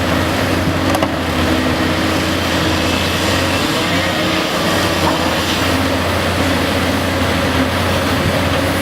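Cat 385BL excavator's diesel engine running steadily under working load while digging.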